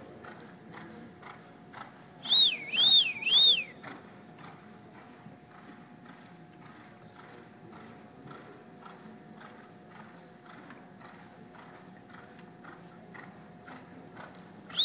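Reining horse loping on soft arena dirt, its hoofbeats coming at an even pace throughout. About two seconds in, three loud whistles in a row, each rising and falling in pitch, and one more right at the end.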